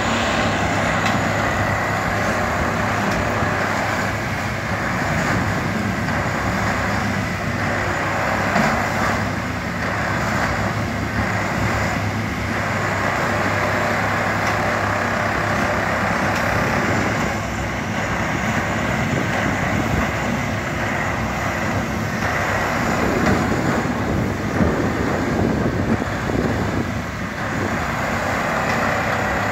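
Plasser & Theurer Unimat 08-275 3S track maintenance machine running steadily with a deep engine hum, rising and falling in short pulses about once a second for stretches of the time.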